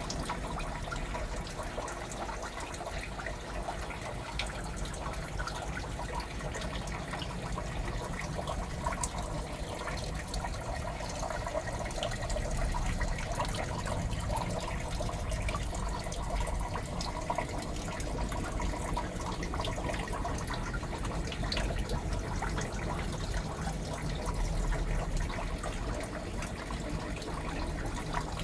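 Steady trickling and bubbling of aquarium water, with small ticks of bursting bubbles and a low hum underneath.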